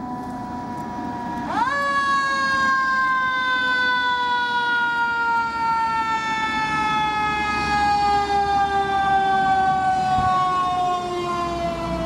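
Fire engine siren, wound up sharply about a second and a half in, then winding slowly down in pitch as the truck comes up the street. The truck's engine rumble grows in the last few seconds as it draws near.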